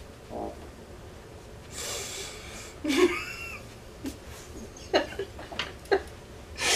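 Stifled laughter: a breathy snort about two seconds in, then a few short giggling sounds.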